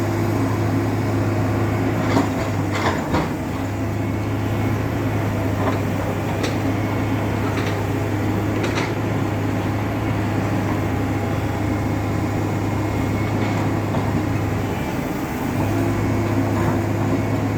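A machine's engine running steadily, with a few sharp knocks and clanks over it. The engine sound dips briefly near the end, then picks up again.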